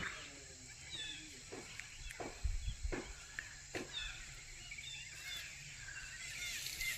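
Faint calls of several birds: scattered short chirps, with four sharper downward-sweeping calls in the first half.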